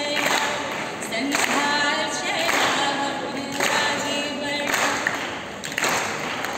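A woman and a children's choir singing a patriotic song into a microphone, phrase after phrase with short breaths between.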